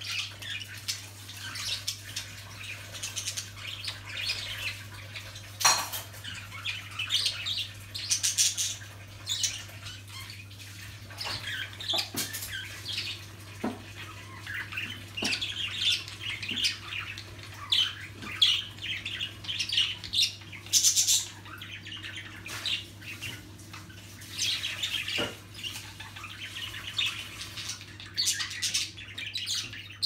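Budgerigars chattering: a continuous run of short warbling chirps and squawks, with a sharp click here and there.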